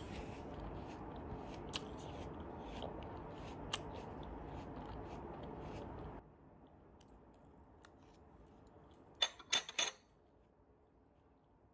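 Small sharp clicks and handling noises over a steady background hum that drops off abruptly about six seconds in; a quick run of loud sharp clicks follows about nine seconds in.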